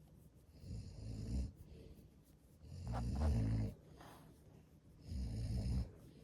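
A man snoring in his sleep: three snores about two seconds apart, the middle one the loudest.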